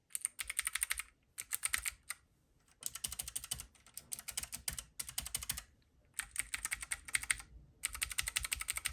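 Typing on Keychron mechanical keyboards fitted with Keychron switches: rapid key clicks in about seven runs of roughly a second each, with short pauses between them.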